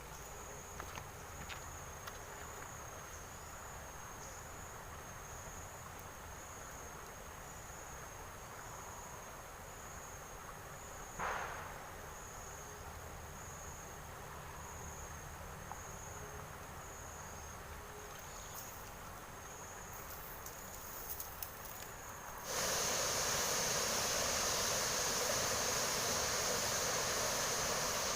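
Insects trilling: a steady high-pitched chirring that pulses at an even rate, with one brief swish about 11 seconds in. Some 22 seconds in, a loud steady rushing noise sets in suddenly and covers it.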